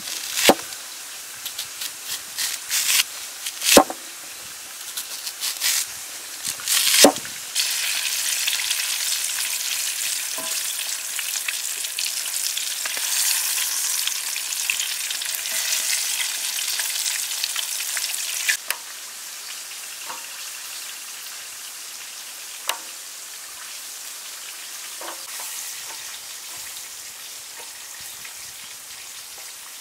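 A large knife slicing an onion on a wooden board, several sharp chops. Then breaded chicken legs deep-frying in hot oil, a loud steady sizzle lasting about ten seconds that cuts off suddenly. After it comes a quieter stretch with a few light taps as onion rings go into batter in a metal tray.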